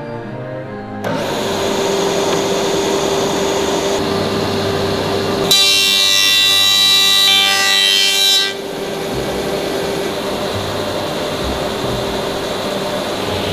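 Woodworking edge machine with powered feed rollers running with a steady hum; a little past the middle it turns into a louder, high ringing whine for about three seconds, then drops back to the steady running sound.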